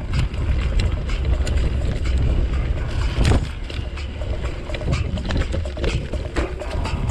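Mountain bike rolling fast down a dirt forest trail: wind buffeting the microphone as a steady low rumble, with frequent clicks and rattles from the bike jolting over roots and stones.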